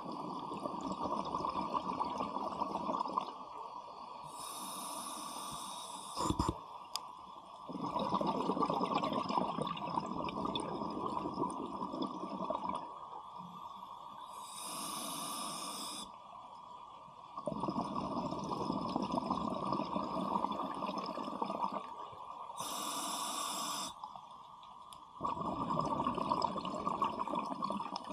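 Scuba diver breathing through an open-circuit regulator, heard underwater: a high hiss on each inhale and a long bubbling rumble of exhaled air on each exhale, in a slow cycle of about one breath every nine seconds.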